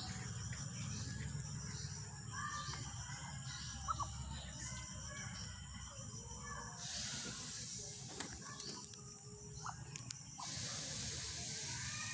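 Outdoor ambience of birds chirping now and then over a low rumble, with a high hiss that swells twice and a few faint clicks late on.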